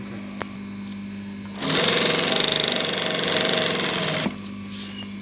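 Twin-needle industrial sewing machine stitching a short test seam: a fast run of needle strokes starts about a second and a half in and stops about three seconds later, with a steady low hum before and after. The seam is sewn to check the balance between needle and bobbin thread tension.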